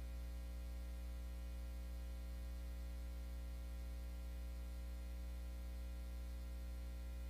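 Steady low electrical hum with a faint buzz of higher overtones above it.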